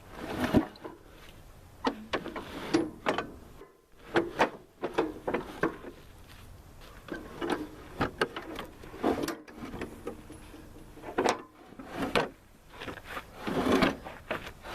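Metal riding-mower deck being dragged out from under the tractor and tipped over: a run of irregular clanks, knocks and scrapes.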